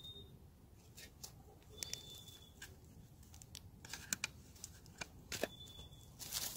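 Wood campfire crackling with irregular sharp snaps, mixed with clicks and rustles of dry leaves and gear being handled beside it. A bird's thin high whistle comes three times, a couple of seconds apart.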